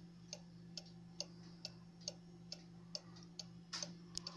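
Chalet-style cuckoo clock's pendulum movement ticking steadily, a little over two ticks a second, with a few sharper clicks near the end.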